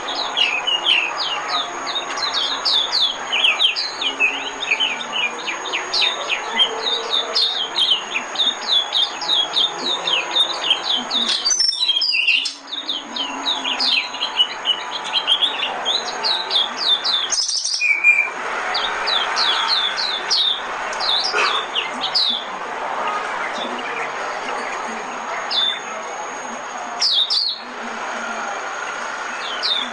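White-eye (vành khuyên) song used as a decoy call: a fast, continuous twittering run of short, thin, high notes, broken twice by brief pauses.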